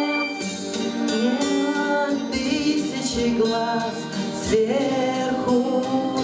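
A women's vocal ensemble singing a melody in several voices over instrumental accompaniment with a steady beat.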